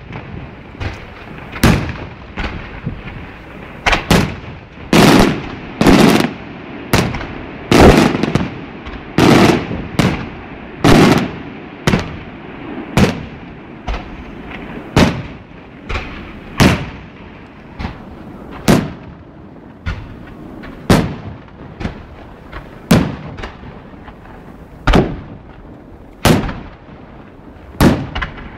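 Maltese festa fireworks detonating: a string of loud, sharp bangs, roughly one every second or so, each trailing off in an echo. They come closest together and loudest in the first half, then space out to about one every two seconds.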